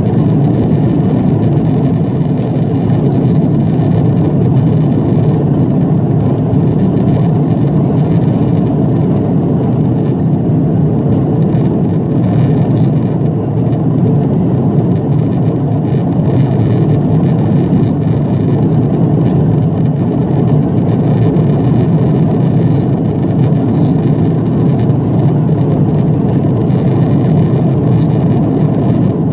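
Steady cabin noise inside an Airbus A340-300 climbing after takeoff: the drone of its CFM56 turbofan engines and rushing air, with a faint high whine above it.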